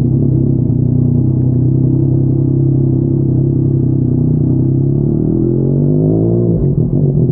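Yamaha MT-09's inline-three engine through a Yoshimura R55 slip-on exhaust, running steadily, then revving up from about five seconds in before the revs drop sharply near the end.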